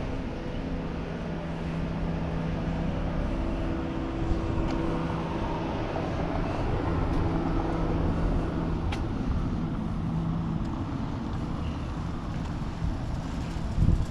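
A motor vehicle's engine running with a steady low hum, over street ambience.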